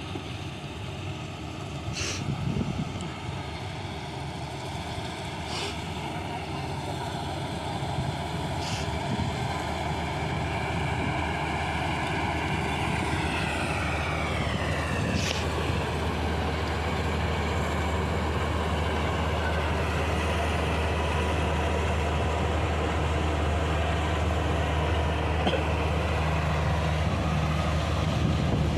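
Combine harvester's diesel engine running with a steady low drone that grows gradually louder. A few sharp clicks are heard, and about halfway through a higher whine drops in pitch.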